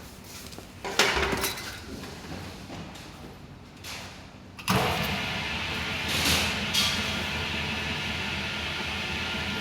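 A single knock about a second in, then a steady machine-like running noise that starts suddenly about halfway through and carries on.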